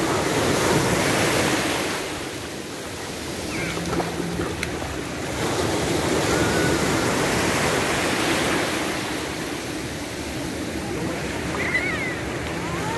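Ocean surf breaking and washing up a beach, swelling and fading in waves every five or six seconds.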